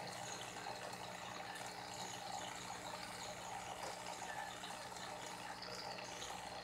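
Aquarium filter running: a steady trickle of moving water over a low, even hum.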